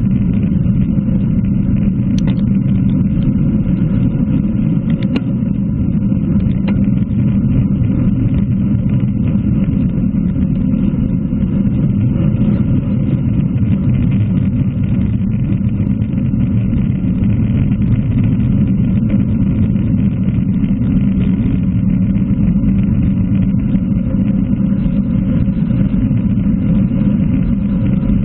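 Steady rush of wind on a bicycle-mounted action camera's microphone, with road-bike tyres humming on tarmac at about 40 to 46 km/h. A couple of faint clicks sound in the first few seconds.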